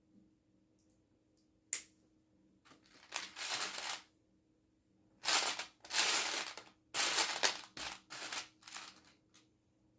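A sharp click about two seconds in, then several rattling, clattering bursts of hands rummaging through loose plastic Lego pieces.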